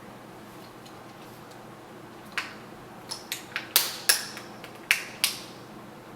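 A quick run of sharp plastic clicks and snaps, about eight in all, starting a little over two seconds in: a laptop screen bezel's clips being pressed and popped into place on the lid.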